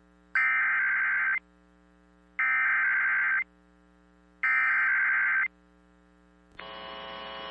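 Emergency Alert System SAME header: three one-second bursts of harsh, buzzing data tone, a second apart, the digital code that opens an alert. Near the end a hiss of noise starts and rises.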